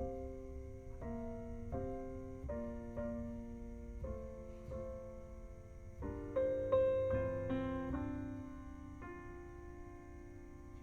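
Piano playing a slow, unaccompanied interlude of chords, each struck and left to ring, with a louder, fuller passage about six seconds in.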